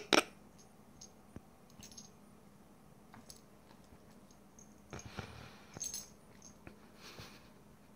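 A cat and a kitten scuffling on a duvet: soft rustling of the bedding and scattered small clicks and scuffs. Two sharp clicks come right at the start, and louder rustles come about five, six and seven seconds in.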